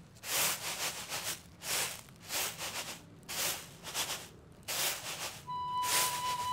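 Grain swishing on a round woven bamboo winnowing tray as it is tossed, a rhythmic swish a little more than once a second. A held music note comes in near the end.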